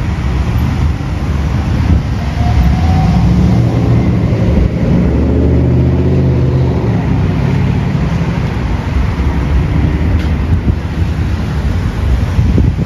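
Road traffic passing on a multi-lane street, with a vehicle's engine rumble swelling through the middle seconds and easing off again.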